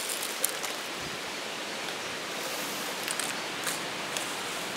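Steady rush of a nearby stream, with a few faint, light ticks and rustles as plants are pushed aside.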